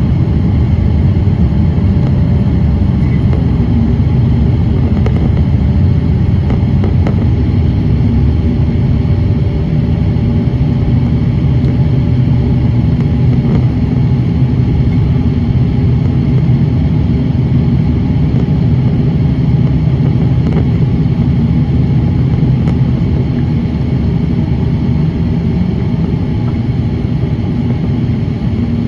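Steady low roar of jet engines and airflow heard inside the cabin of a Boeing 787-8 in flight, from a seat over the wing, with faint steady hums beneath it.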